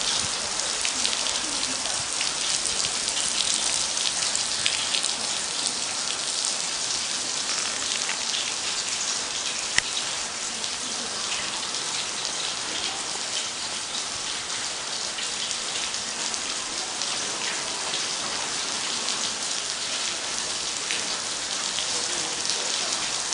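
Water falling from a rain-like water wall as a steady, dense patter of drops with a bright hiss. One sharp click stands out about ten seconds in.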